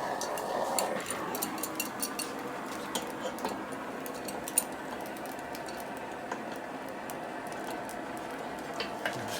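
Gas torch flame hissing steadily while heating a seized fitting to break its thread-locking compound, with faint clicks and taps of tools on metal.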